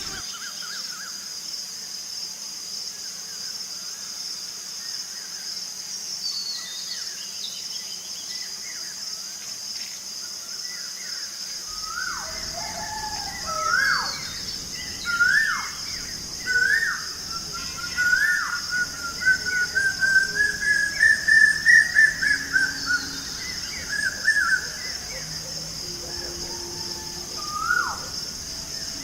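Birds calling over a steady high-pitched insect drone. About twelve seconds in, a bird starts a series of loud whistled notes, each about a second and a half apart. The notes speed up and climb in pitch into a fast run that is loudest just past the middle, then trail off.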